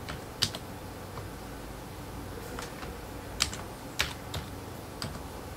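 Computer keyboard being typed on: a handful of separate keystrokes at an uneven, hunt-and-peck pace as an email address is entered.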